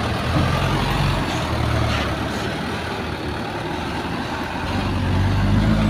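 Diesel engine of a loaded light dump truck running as the truck pulls away slowly, with the engine note growing louder near the end.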